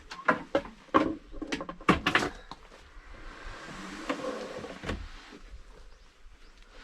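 Handling of a sliding box for a car fridge: a quick run of clicks and knocks, then a softer sliding rustle and one more knock about five seconds in.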